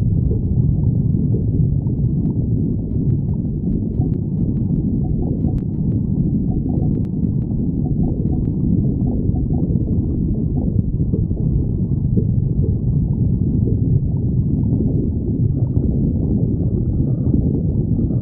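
Human stomach growling: a continuous low rumble that does not let up, with a few faint clicks in the first half.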